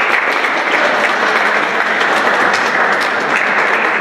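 Audience applauding steadily, the clapping starting to thin out near the end.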